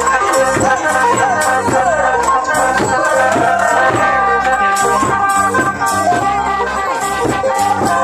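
Live Thai folk procession music: drums beating an even rhythm with shaken rattle-like percussion, under sustained tones and a wavering melody line.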